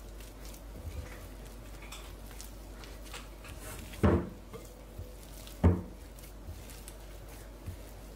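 A hand kneading soft yeast dough in a glass mixing bowl: small scattered taps and pats, with two sharp, louder knocks, about four seconds in and again a second and a half later.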